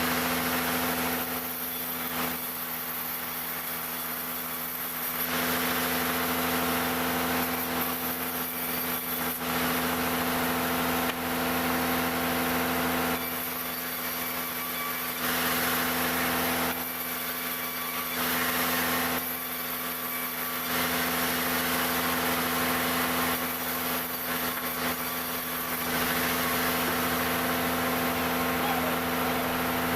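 Engine-driven wood-cutting sawmill machine running steadily, with several louder stretches of a few seconds each as the saw cuts through jackfruit timber.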